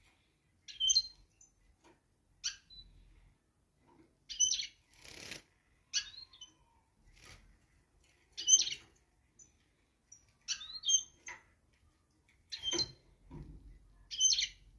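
Caged European goldfinch and greenfinch: about eight short, high chirping calls, spaced one to two seconds apart. A brief wing flutter comes about five seconds in, and soft thumps of hopping on the perches come near the end.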